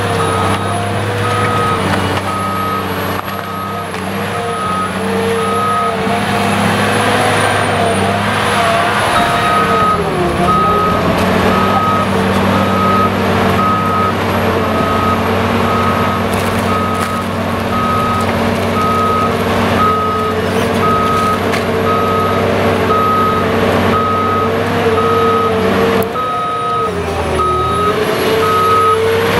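Caterpillar 522B tracked feller buncher's diesel engine running steadily while the machine moves, with a travel alarm beeping about once a second that pauses twice. The engine note sags briefly twice, as if under hydraulic load.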